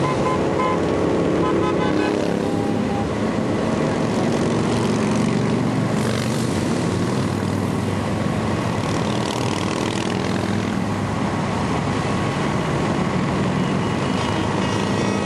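Many motorcycles passing in a continuous stream on the interstate, their engines blending into one steady drone.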